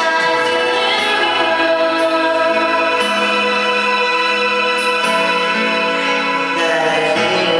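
Karaoke backing track of sustained keyboard chords that change a few times, with a voice singing into a microphone over it at moments.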